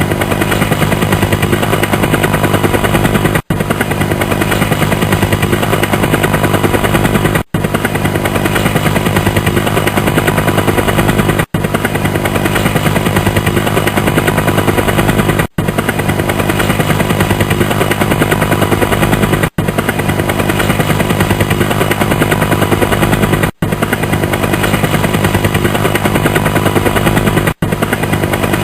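Helicopter rotor chop: a fast, steady beat of the blades over engine hum. The sound cuts out for an instant about every four seconds.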